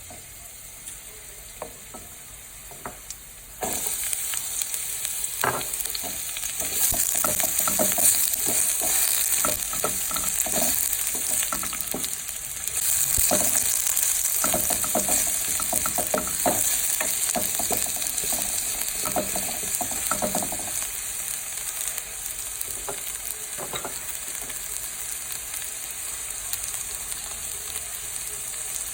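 Vegetables stir-frying in a hot pan: a few light clicks, then the sizzle jumps up suddenly a few seconds in. Through the middle, a utensil knocks and scrapes against the pan as the food is stirred, then the knocking stops and the sizzling carries on, a little quieter.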